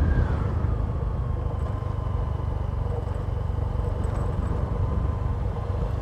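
Motorcycle running along a road, heard from the handlebars as a steady low rumble; a thin whine in its sound drops in pitch in the first second as the bike eases off, then holds steady.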